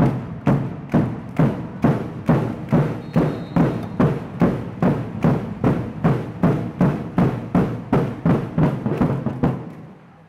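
A bass drum beaten in an even beat, a little over two strokes a second, the crowd's drumming stopping near the end.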